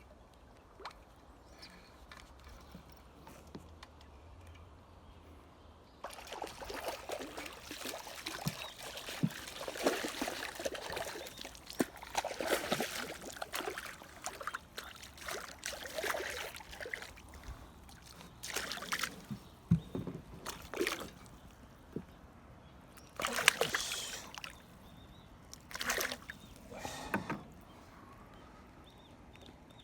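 Water sloshing and splashing in irregular bursts that start about six seconds in.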